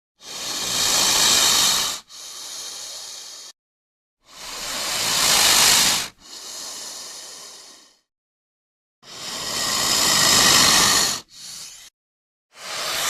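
Snake hissing repeatedly: four long, loud hisses about every four seconds, each swelling, then cutting off and followed by a shorter, quieter hiss.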